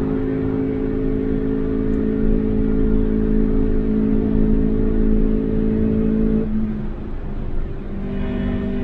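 Daihatsu Applause's four-cylinder engine heard from inside the cabin, running at steady revs. The engine note drops away about six and a half seconds in and picks up again near the end.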